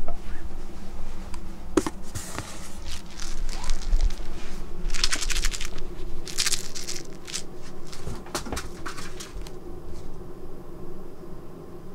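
A cat toy waved by hand, giving several short bursts of crinkling rustle, with a couple of sharp knocks between them.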